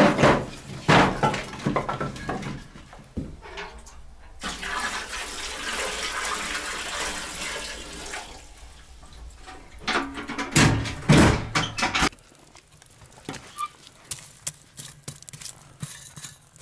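Water pouring in a steady rush for about four seconds, with knocks and clattering before it and a loud cluster of knocks a few seconds after.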